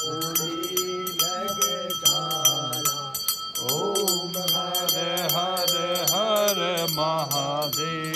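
A male voice sings a Hindu devotional chant with a gliding, drawn-out melody. A small hand bell is rung steadily under it, about four strikes a second, as is typical during an aarti, and its ringing tone hangs on between strikes.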